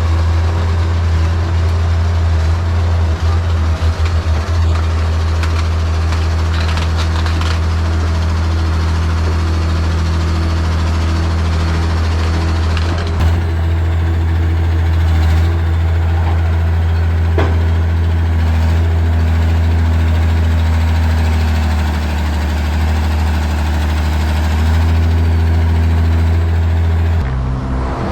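Heavy diesel engine running steadily at a constant speed, a deep, even drone.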